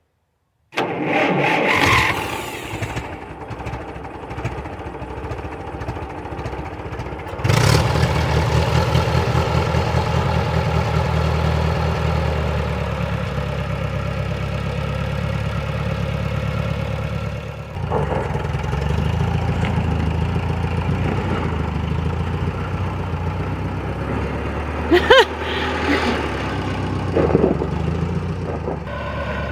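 Ferguson TO30 tractor's engine being started: a few seconds of cranking, then it catches about seven seconds in and runs on steadily with an even beat. There are a few sharp knocks near the end.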